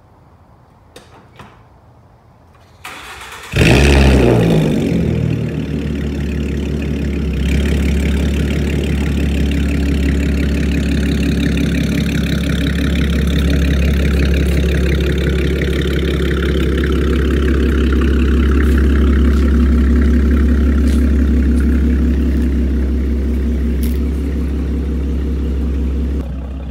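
2013 Ford Mustang with a newly installed X-pipe exhaust starting up about three and a half seconds in: the engine catches with a sharp flare in revs that quickly falls away, then settles into a steady, deep idle at the tailpipes.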